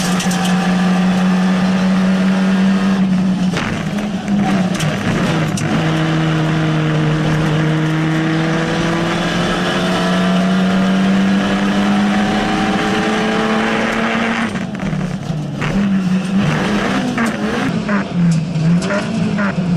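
Rally car engine heard from inside the cabin, running hard at high revs. About four seconds in the note breaks with a few clicks, then climbs slowly in pitch for several seconds as the car accelerates. Over the last few seconds the revs rise and fall quickly, with clicks and knocks.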